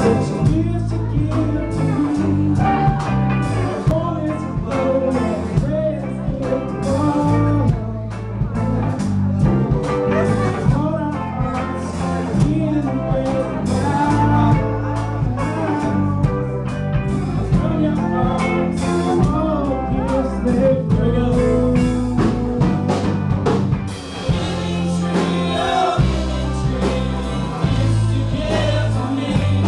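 A live band playing: guitar, a steady bass line and a drum beat under a singer.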